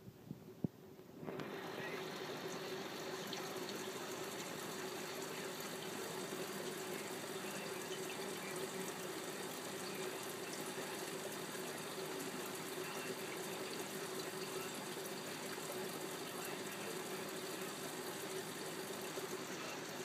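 Water pump of an aquarium filter switching on about a second in, then running steadily: even rushing, splashing water over a constant low hum.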